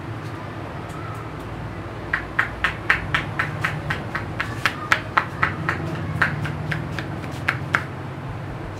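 Barber's hands tapping on the head in an Indian head massage: a run of sharp slaps at about four a second, starting about two seconds in and stopping near the end.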